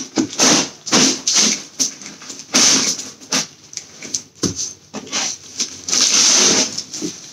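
Plastic wrapping and a cardboard carton rustling and crinkling in irregular bursts as the box is slid up off a plastic-wrapped folding metal bed.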